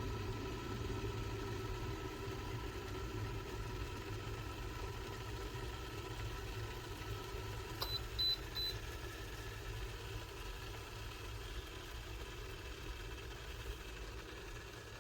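Keebar gooseneck electric kettle heating water with a steady low rumble. About eight seconds in, a click and three short high beeps from the kettle.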